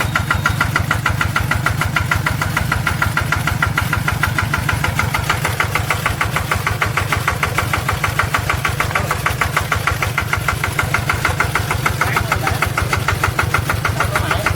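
Engine of a homemade rice-field sprayer machine running steadily, with a rapid, even pulsing beat.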